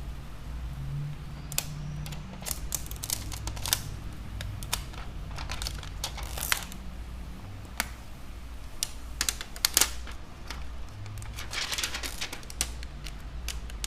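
Irregular clicks and light taps with crinkling of a thin plastic protective film as it is peeled and handled on an iPad Air's new digitizer glass.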